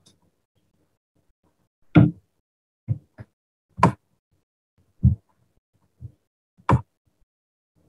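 A series of sharp knocks, about seven at irregular spacing, the loudest about two seconds in.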